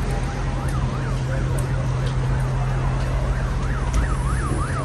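Emergency vehicle siren in a fast yelp, rising and falling about three times a second, starting about half a second in and growing louder. Steady traffic rumble runs beneath it.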